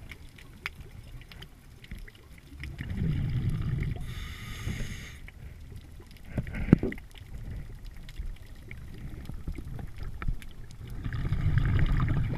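Scuba regulator breathing heard underwater: a bubbling rumble of exhaled air about three seconds in and again near the end, and a hissing inhale around four seconds. Scattered faint clicks throughout, and one sharp knock about two-thirds of the way through.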